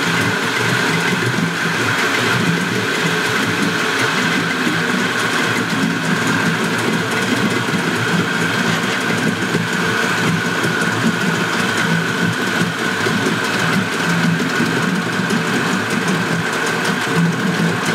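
Old 20 HP Spirit two-stroke outboard, a Suzuki-built rebadge, running steadily in a test tank with its cowling off, holding an even speed.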